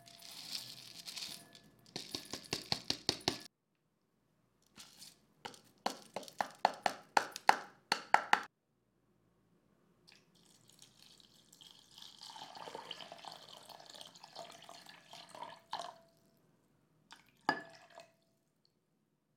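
Kitchen preparation sounds: two runs of quick small clicks and taps of hard pieces, then several seconds of water noise, then one ringing clink of glass or ceramic near the end.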